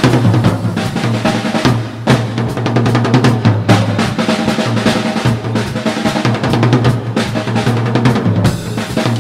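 Drum kit solo: a continuous, dense run of fast strokes across the kit, with ringing low drum tones under them.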